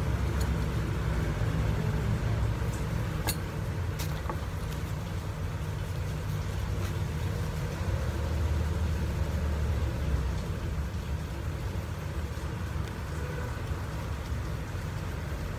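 A steady low rumble throughout, with a couple of faint sharp clicks about three and four seconds in as utensils are handled and unwrapped from a cloth pouch.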